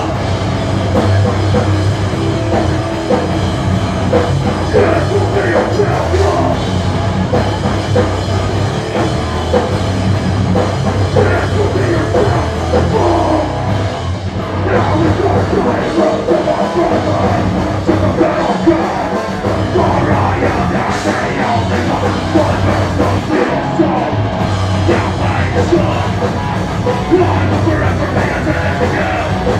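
Live hardcore punk band playing at full volume: distorted guitars, bass and drums with vocals over them, continuous throughout.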